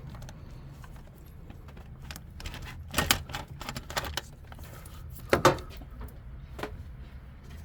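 Metal tools and parts clinking and knocking in a car's engine bay during hand work, with scattered light clicks and two louder clattering knocks about three seconds in and again about five and a half seconds in.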